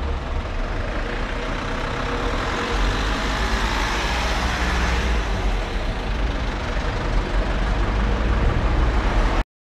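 Passenger train running, a steady low rumble with rushing noise that swells slightly, then cuts off suddenly near the end.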